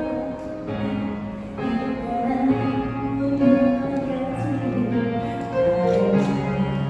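A woman singing a slow Korean pop ballad into a microphone over a recorded piano and guitar accompaniment, the melody held in long notes.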